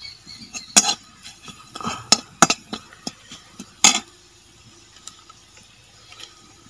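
Metal spatula clinking and scraping against a steel kadai as onions are stirred: a handful of sharp clinks in the first four seconds, then the stirring stops.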